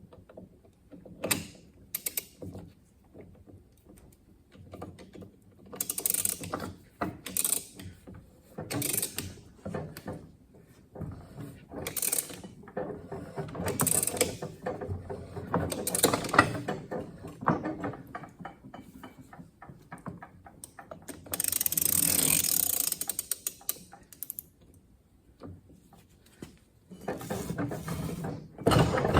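Ratchet wrench clicking in repeated strokes as it runs a nut down the NV4500 transmission's mainshaft threads, drawing the new fifth gear assembly onto the shaft until it seats.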